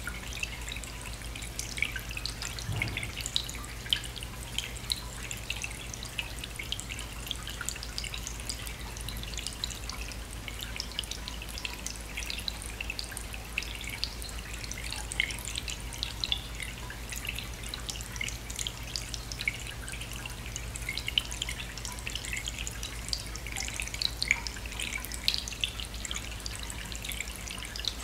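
Water trickling and dripping steadily in a small garden statue fountain, the Sunnydaze Relaxed Buddha fountain with its submersible pump, with a steady low hum underneath.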